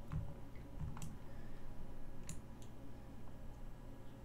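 A few sharp computer mouse clicks, spaced about a second apart, over a faint steady low hum.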